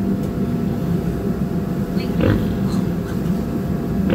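Newborn piglets nursing on a sow, squealing briefly about two seconds in and again near the end, over a steady low hum.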